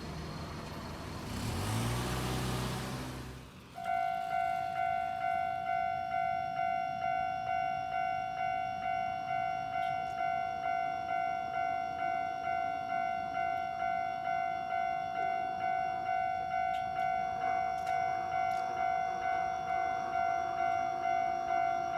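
The noise of a passing electric train swells and fades over the first few seconds. About four seconds in, a Japanese level crossing's electronic warning bell starts abruptly, ringing a steady high clang about twice a second.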